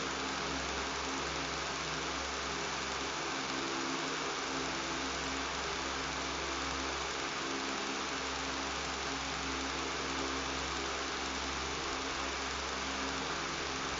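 Electric fan running steadily: an even rush of air with a constant buzzing hum beneath it.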